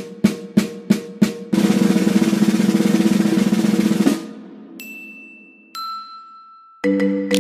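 Snare drum played with sticks: single strokes about three a second, then a roll of about two and a half seconds that stops abruptly and rings away. Two short, high single tones follow, and near the end a run of pitched notes starts.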